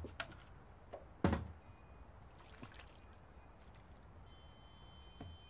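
Quiet handling noises while preparing to paint: a few light knocks and clicks, with one heavier thump about a second and a quarter in and another soft knock near the end.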